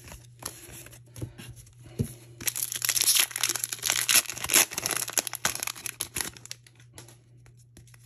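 Foil wrapper of a Pokémon booster pack being torn open and crinkled by hand: a dense run of crackling from about two and a half seconds in until about six seconds in. Lighter clicks of trading cards being flipped come before and after it.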